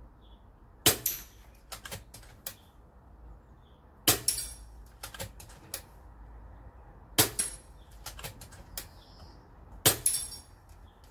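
Four shots from an FX Dreamline .22 PCP air rifle, about three seconds apart. Each is a sharp crack with a short metallic ring as the pellet strikes a steel target, followed by lighter clicks.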